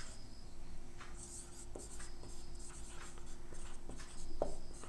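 Felt-tip marker scratching and squeaking on a whiteboard as words are written, with a few light taps of the pen tip.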